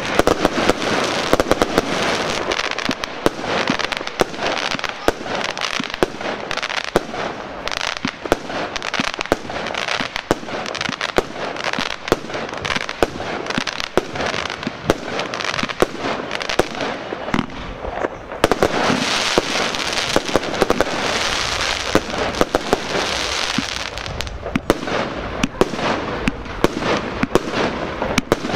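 Aerial fireworks going off in rapid succession: a dense run of bangs and pops with constant crackling, thickening into a heavier stretch of crackle a little past the middle.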